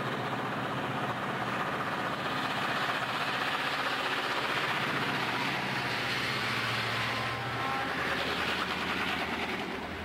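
Southern Pacific diesel freight locomotives passing close by with their engines running steadily, the rumble of the train's cars following behind them, with a few faint thin high squeals about seven seconds in.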